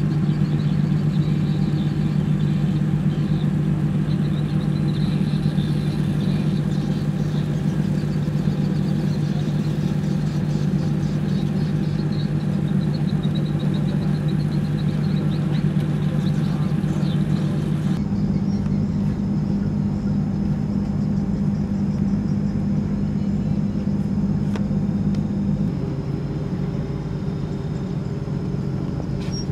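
Car ferry's engines running with a steady low drone. The tone shifts abruptly about two-thirds of the way through and again a few seconds before the end.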